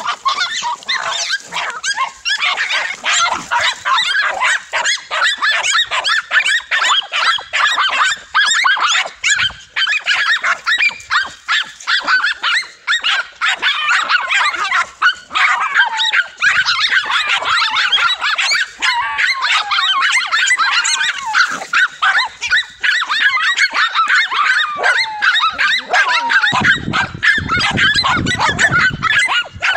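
Several dogs barking and yapping at a large lizard they hold at bay, a rapid, overlapping stream of barks that never lets up. A low rumble joins in near the end.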